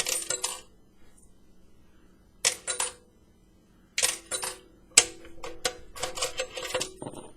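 Quarters dropped through a payphone's coin mechanism, clattering down the chute into the metal coin box with a metallic ring. There are five bursts of clinking, the last and longest one near the end.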